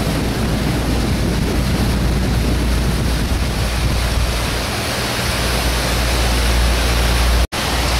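Steady rush of wind and water with a deep rumble beneath it, heard aboard a motor boat underway. The sound cuts out for a split second near the end.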